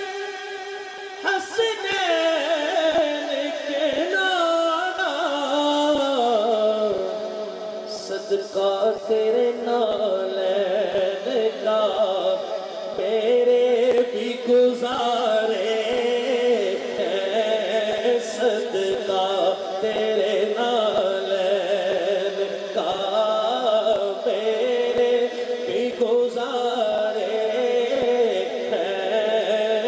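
Man singing a naat into a microphone in long, drawn-out melismatic phrases, his pitch gliding and sliding downward over the first several seconds.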